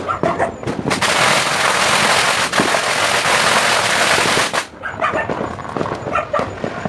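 Fireworks going off in one continuous dense crackling burst about three and a half seconds long, starting about a second in and cutting off sharply. Dogs yip and bark before it and after it.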